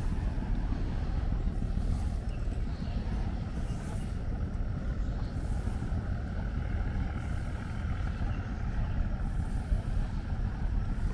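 Outdoor city ambience: a steady low rumble with a faint hiss that swells a little around the middle.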